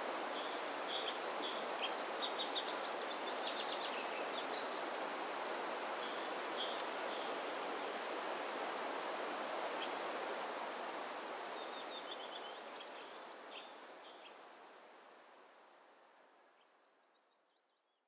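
Steady wind noise outdoors with small birds chirping over it, including a run of high, evenly spaced single notes. The whole soundscape fades away over the last several seconds.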